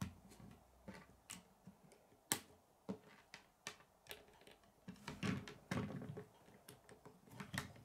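Plastic K'nex rods and connectors clicking and snapping as pieces are pressed together, with light handling rattles. The clicks are irregular and fairly faint, the sharpest a little over two seconds in.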